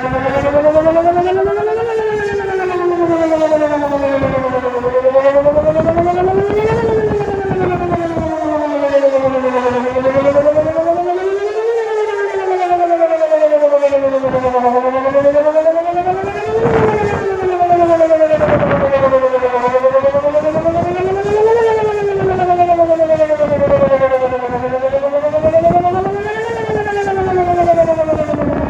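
Whelen WPS 2910 electronic outdoor warning siren sounding a wail, two tones together gliding slowly up and then down in pitch, one full rise and fall about every five seconds.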